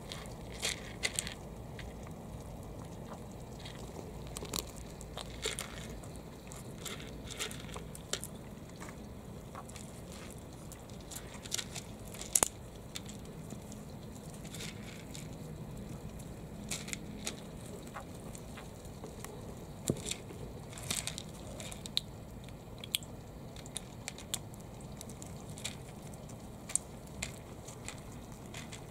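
Japanese pond turtles biting into hard food pellets: irregular sharp clicks and crunches, coming in small clusters.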